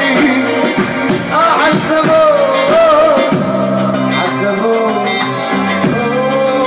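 Live Arabic pop music from an electronic keyboard: a lead melody slides and bends in pitch over a steady chordal accompaniment and beat.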